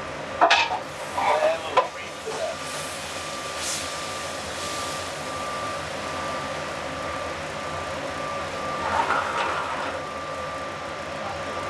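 Restaurant-kitchen background: a steady hiss with a faint steady high tone that cuts in and out. A few sharp knocks and a short clatter of utensils come in the first two seconds, and more clatter comes about nine seconds in.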